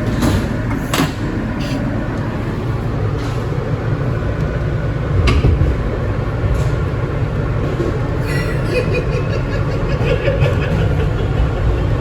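R160B subway car running between stations: a steady low rumble of wheels on rail with a few sharp clicks. High ringing tones join about eight seconds in.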